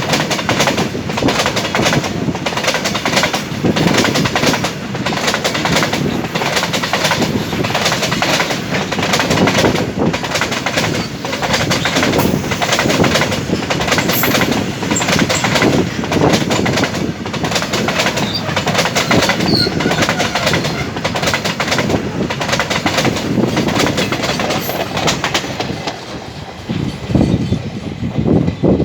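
Freight train wagons rolling past close by, wheels clattering over the rail joints in a steady clickety-clack, the level dipping a little near the end.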